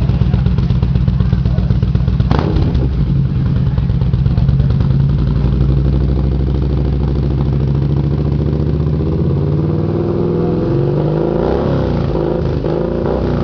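Yamaha Midnight Star 950 V-twin running through a Roncar Scorpion V Road sport exhaust, a steady low idle note. About ten seconds in the engine speed picks up a little and the note rises.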